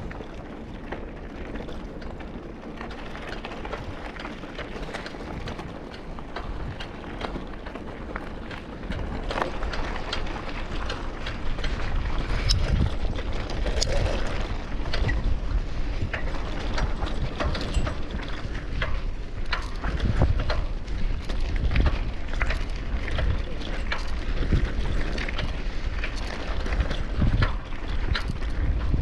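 Riding a bicycle: wind buffeting the microphone with a low rumble, and the frame and parts rattling and clattering over a bumpy surface, getting louder about a third of the way in.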